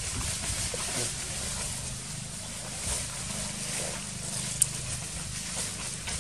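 Steady outdoor background noise with a low, even hum underneath, and one sharp click a little past halfway.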